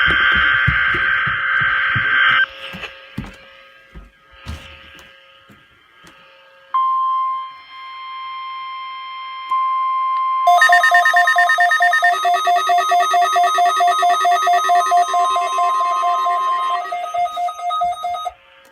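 NOAA Weather Radio alert signals: a buzzy burst of digital data-header tones for the first two seconds or so. About seven seconds in, the steady 1050 Hz warning alarm tone starts. From about ten seconds a rapidly pulsing electronic alarm of several pitches sounds along with it until shortly before the end.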